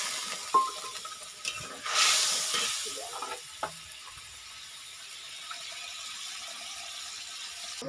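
Water poured into a hot steel karai of frying masala hisses and sizzles. There is a sharp metal clink about half a second in and a second swell of sizzling about two seconds in. A few lighter clinks follow, then a fainter steady sizzle.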